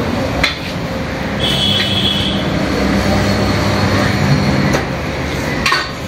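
Tyre-changer machine's turntable motor running for about three seconds while an old tyre is worked off an alloy rim, with a brief high squeal as it starts. Sharp metal knocks from the steel tyre lever come just after the start and again near the end.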